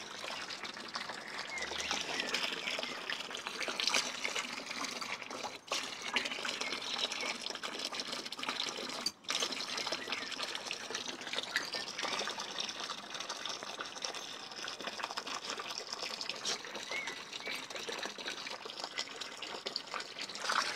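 A garden hose jet pouring and splashing into the water of an inflatable paddling pool, a steady gushing sound that drops out briefly twice.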